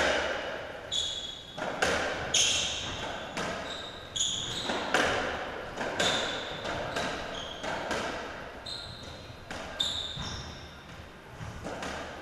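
Racketball rally on a squash court: the ball cracking off rackets and walls every half second to a second, with short high squeaks of shoes on the court floor between the hits.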